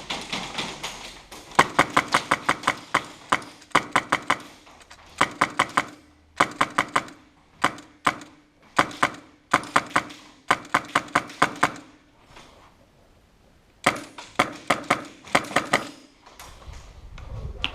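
Airsoft gun firing in rapid strings of sharp cracking shots, about six bursts with short pauses between them, a low motor-like hum under each string. A low rumble comes near the end.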